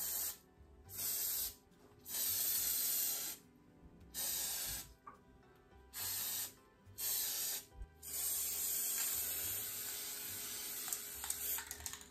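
Aerosol flower colour spray can hissing in short bursts of about a second each, then a long continuous spray of about four seconds near the end. Blue dye is being sprayed onto white moth orchid blossoms.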